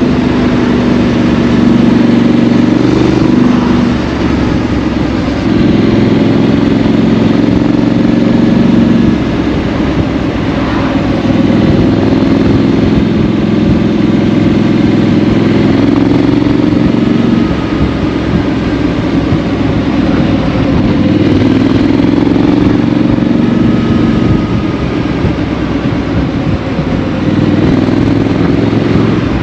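A 2018 Triumph Street Scrambler's 900 cc parallel-twin engine running through a Vance & Hines exhaust while riding at road speed. The engine note drops back briefly a few times as the throttle is eased, then picks up again.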